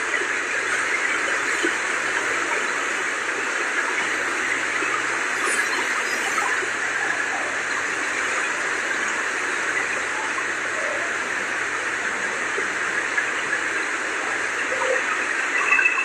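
The Kosi River in flood, muddy water rushing and churning steadily past the barrage.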